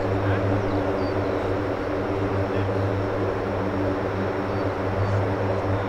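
Steady low drone of a Dassault Falcon 7X's three turbofan engines at approach power as the jet comes in on final to land.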